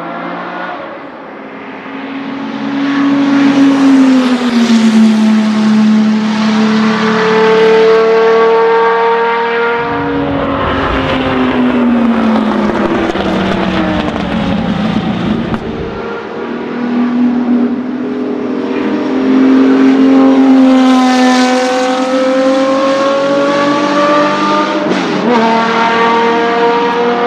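Racing car engine at high revs, its pitch climbing and falling again and again as it runs through the gears and lifts off. The sound changes abruptly about ten and sixteen seconds in.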